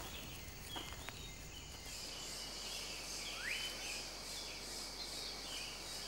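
Rainforest ambience: a steady, evenly pulsing high insect chorus with scattered short bird chirps and one rising whistled call about three and a half seconds in. Two faint clicks come about a second in.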